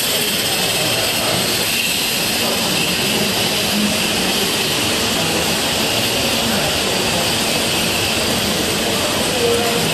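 Steady hiss of live-steam garden railway locomotives in steam.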